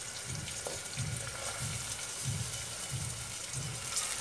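Chopped onions, green chillies and cumin sizzling as they fry in oil in a pressure cooker, a steady hiss with soft low pulses about every two-thirds of a second.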